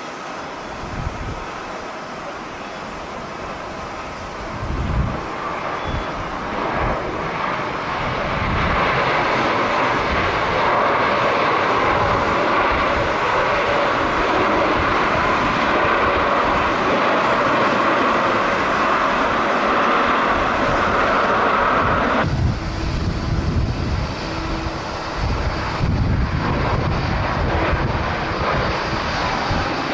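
Jet airliner's engines growing to a loud, steady roar as the plane passes, then dropping off suddenly about two-thirds of the way through. Gusts of strong wind buffet the microphone throughout.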